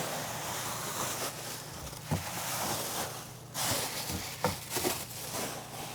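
Plastic shopping bags rustling and crinkling as they are pulled out of a cabinet and handled, with a few light knocks.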